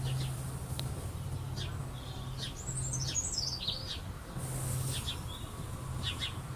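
A bird chirping in short high calls, with one quick warbling phrase around the middle, over a steady low hum.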